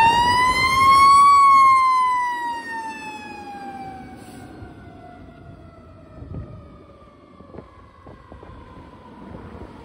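Fire engine's mechanical siren winding up to its peak about a second in, then slowly coasting down in pitch and fading as the pumper pulls away.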